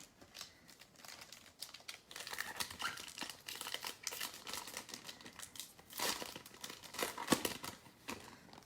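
Plastic wrapper of a trading-card pack crinkling and tearing as it is ripped open, with irregular crackles throughout.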